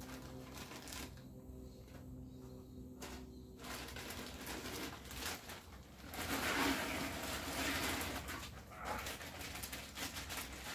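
A plastic bag of frozen mixed berries being cut open and handled, crinkling loudest in the middle, with a rattle of frozen berries starting to drop into a steel stockpot near the end. A low steady hum stops about three and a half seconds in.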